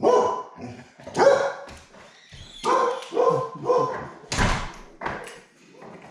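Pet dog barking repeatedly, about seven barks in quick succession, to be let outside.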